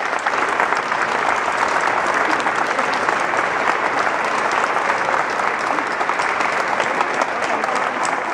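Audience applauding steadily, with a few voices from the crowd heard among the clapping.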